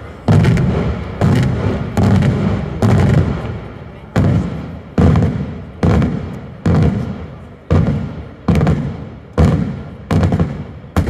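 Daytime aerial firework shells bursting in a steady sequence, about a dozen loud bangs at roughly one a second, each trailing off in a rolling echo.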